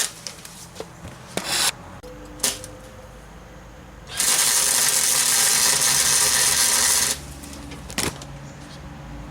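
MIG welder arc running on a nut being welded onto a broken exhaust manifold stud: a steady, loud, even noise of about three seconds in the middle, with a few short bursts before it and one near the end.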